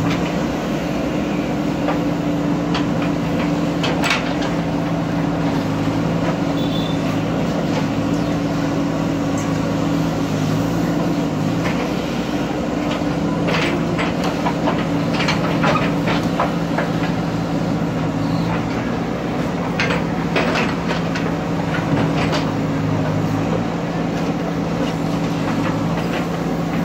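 Diesel engine of a JCB earthmover running steadily under load, with scattered clanks and rattles of metal and stone.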